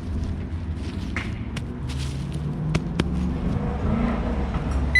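A steady low rumble, with a few sharp clicks about one and a half and three seconds in.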